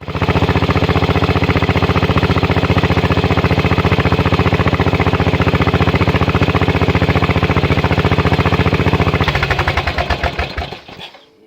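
Turbocharged 17 hp Briggs & Stratton engine on a Poulan Pro riding mower, fitted with a Mitsubishi TD05-14B turbo, running steadily and loudly. About nine seconds in it is shut off: the firing slows and dies away over about two seconds as the engine and turbo spool down.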